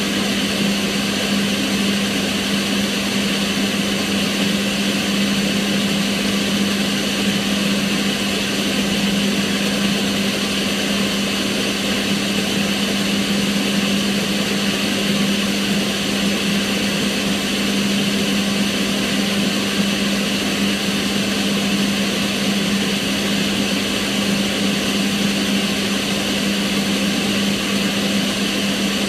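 Kitchen range hood extractor fan running steadily, a constant whooshing rush of air with a low, even hum.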